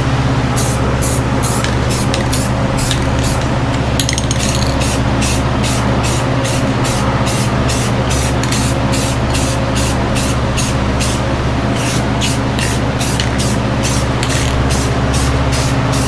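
Paint spraying onto a metal water jug: hissing in quick, regular pulses of about three a second, with brief pauses, over a steady low hum.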